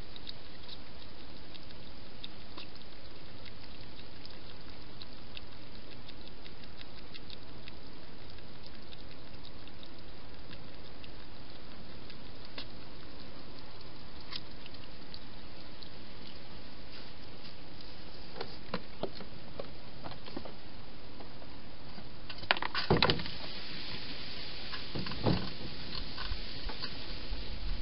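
Wild hedgehog at a plastic feeding box, heard over a steady hiss with faint scattered ticks. About three-quarters of the way through there is a cluster of knocks on the box as the hedgehog moves into it, then one more knock and crackly clicking, like small crunchy bites.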